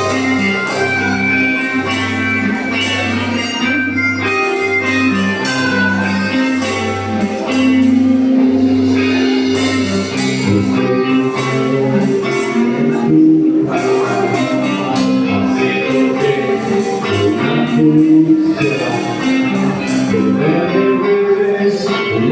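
Live band music with guitar and a pulsing bass line.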